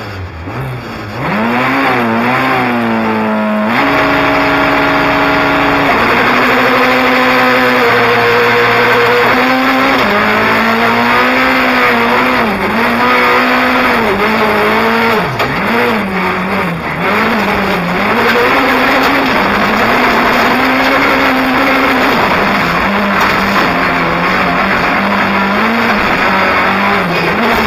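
Rally car engine heard from inside the cockpit, driven hard: the revs climb and drop over and over as the driver accelerates and lifts, with a few seconds held at a steady high pitch about four seconds in.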